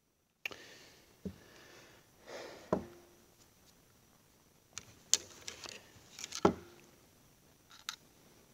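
Small steel parts of a hydraulic valve lifter being handled and set down on a hard surface: a scattered series of clicks and knocks, two of them followed by a brief metallic ring.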